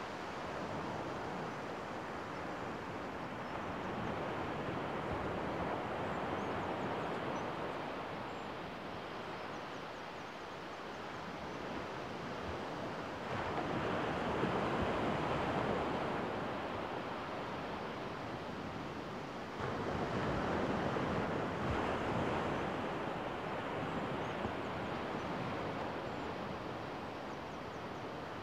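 Gentle surf on a sandy beach: small waves breaking and washing up the shore in a steady hiss that swells louder twice in the second half.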